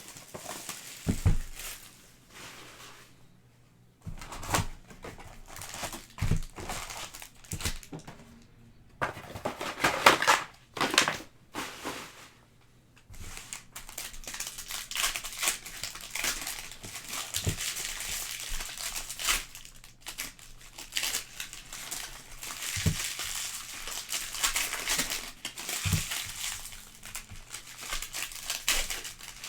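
Wrappers of Panini Prizm trading-card packs crinkling and tearing as the packs are opened by hand, with a few soft knocks.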